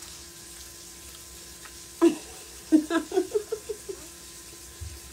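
A woman laughing: one burst about two seconds in, then a quick run of short "ha-ha" pulses lasting about a second, over a steady faint hum.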